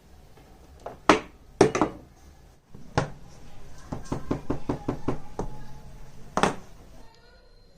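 A series of sharp knocks and taps, with a quick run of light taps of about six a second in the middle, typical of an old razor being knocked apart or worked with a small hammer in restoration.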